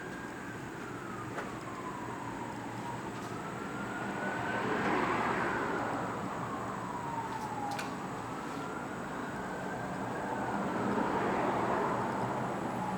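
Emergency vehicle siren wailing, one slow rising-and-falling tone repeating about every five seconds, over a steady rushing noise that swells twice.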